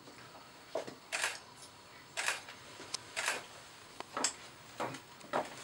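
Camera shutters clicking, roughly one shot a second at irregular intervals, about eight in all.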